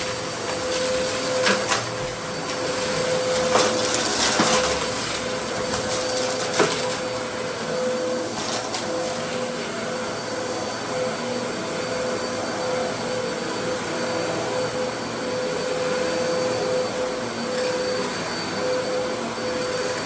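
Dyson DC07 All Floors upright vacuum cleaner running steadily with a constant whine, with a few sharp clicks in the first several seconds.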